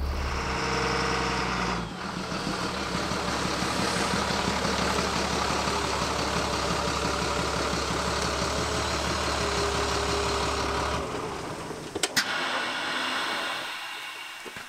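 Caterpillar 3126 inline-six diesel in a Ford F350 running quietly with a steady low hum, then shutting off about eleven seconds in. A couple of sharp clicks follow, like the door being unlatched.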